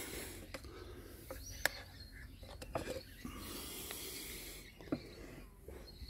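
Faint handling sounds at a wooden beehive: a few light clicks and knocks, with a soft rustling hiss about halfway through.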